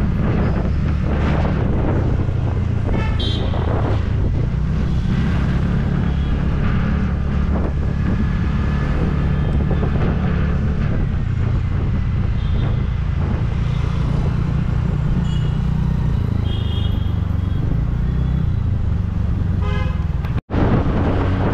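Wind rumble on the microphone of a scooter riding through city traffic, with vehicle horns honking several times, about three seconds in, a few in the middle and once near the end. The sound drops out for an instant just before the end.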